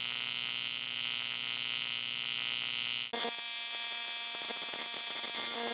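AC TIG welding arc on thin .063" aluminum, a steady buzz with a bright hiss. About three seconds in it changes abruptly to a second arc, buzzing with fine crackles.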